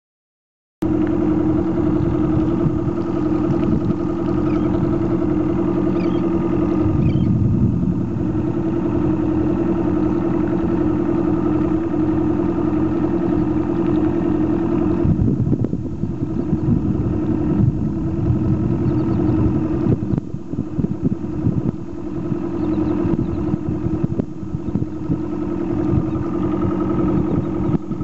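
Boat motor running steadily at cruising speed, a constant hum with a strong low tone, starting about a second in. From about halfway the sound turns choppy and uneven.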